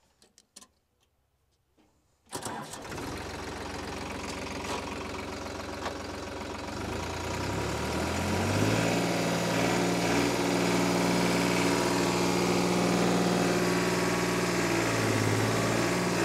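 Modified New Holland 3630 three-cylinder diesel tractor engine coming in suddenly about two seconds in. It climbs in pitch over a couple of seconds, then holds steady at high revs while the tractor pulls a tine cultivator through hard soil.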